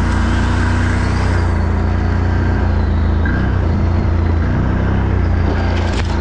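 ATV engine running steadily with a low drone, heard from on board the quad.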